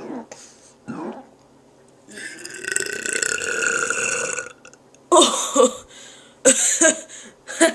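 Human burping: a long drawn-out burp of about two and a half seconds, then three short loud burps.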